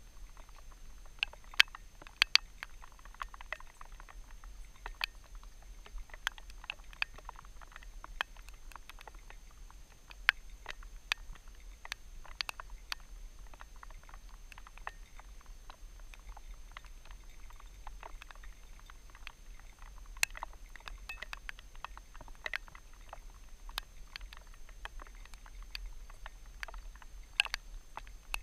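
Scattered sharp ticks and taps close to a helmet camera, a few much louder than the rest, over a low steady rumble, while riding a horse in the rain.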